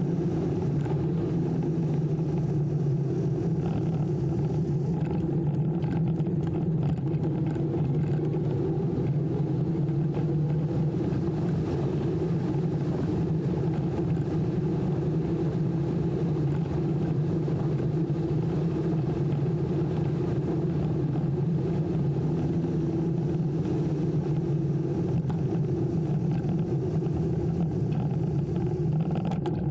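TOSEVEN DM01 mid-drive e-bike motor humming steadily while riding at an even pace, mixed with tyre and wind noise.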